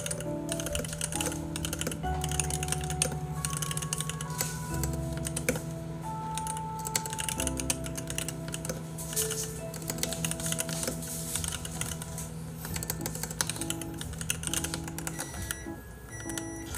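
Rapid clicking of a computer keyboard being typed on, over soft background music with long held notes.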